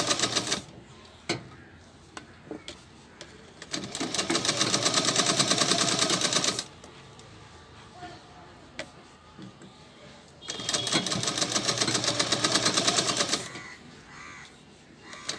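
Manisha sewing machine stitching cloth in three short runs of a few seconds each, its needle going in rapid, even strokes. It stops between runs, and a few faint clicks are heard in the pauses.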